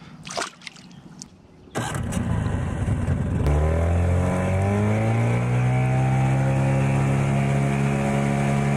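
Outboard motor of a small jon boat under way. A rush of noise comes in about two seconds in, then the engine's pitch rises as it speeds up and settles into a steady run.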